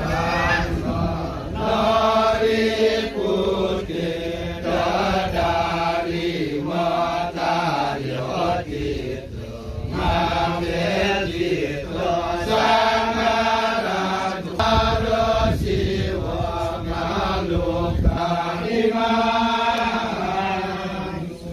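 Voices chanting a melodic Balinese chant unaccompanied, holding long notes that step up and down in pitch, with short breaks between phrases.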